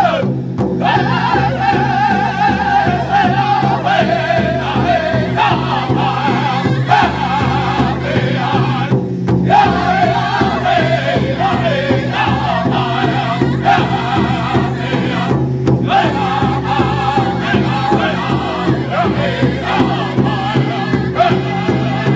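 A group of men singing together in high, wavering voices over a steady beat, with brief breaks between phrases.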